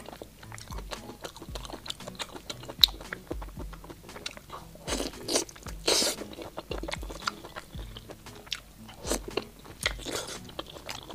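Close-miked eating sounds: a person biting into and chewing soft, saucy braised meat, with irregular wet bites and chews and a sharp click a little before three seconds in.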